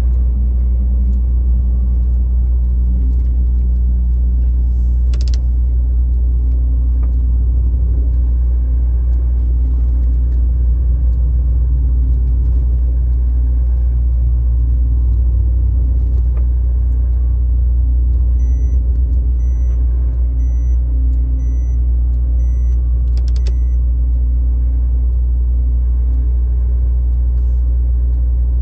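Steady low rumble of a vehicle's engine and tyres heard from inside the cabin while cruising on the highway. A faint beep repeats about once a second for a few seconds past the middle.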